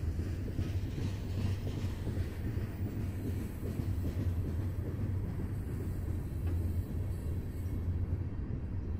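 Freight train cars rolling past on the rails: a steady low rumble with no distinct wheel clicks.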